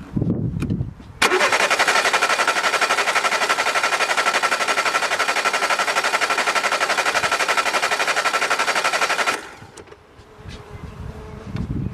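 Car engine cranked over on its starter motor for about eight seconds with a spark plug out and a compression gauge fitted, a fast even pulsing with each compression stroke, starting abruptly about a second in and cutting off near the end. This is a cylinder compression test, and the reading it gives is about 9, which is taken as rather weak.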